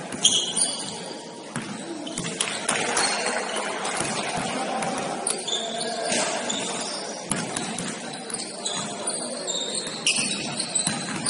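Basketball game in a gym: sneakers squeaking on the hardwood court in short, high chirps, the ball bouncing, and players' and spectators' voices echoing in the hall.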